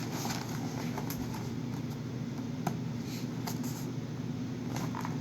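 A few faint taps and clicks from a cardboard sneaker box being handled and turned over, over a steady low hum.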